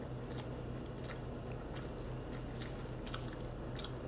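A person chewing a mouthful of baked cold noodles, with many small wet clicks and smacks of the mouth, over a steady low hum.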